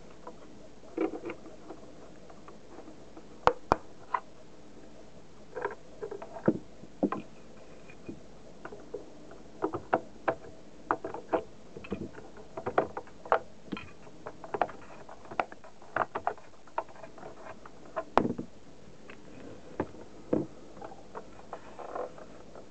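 Irregular clicks, taps and scrapes from a hand handling the plastic case of a Seiko alarm clock: the battery compartment is open and AA batteries are being handled. The sharpest knocks come about 3.5 s, 6.5 s and 18 s in.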